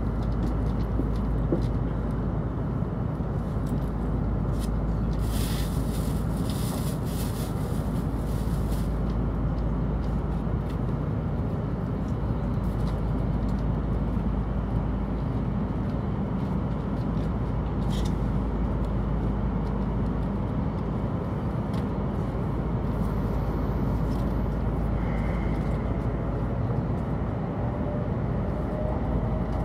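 Cabin of a Hokuriku Shinkansen train pulling out of a station: a steady low rumble, with a few seconds of hiss about six seconds in. Near the end a faint whine rises slowly in pitch as the train picks up speed.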